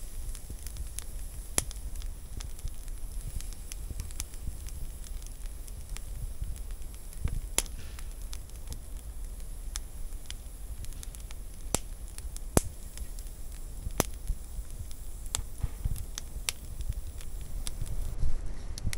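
Wood fire crackling: irregular sharp pops and snaps over a steady hiss, with a low rumble underneath.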